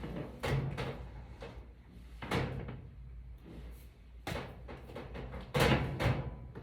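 Handling noise as objects are moved out of the way: a few separate knocks and clunks about two seconds apart, the loudest pair near the end.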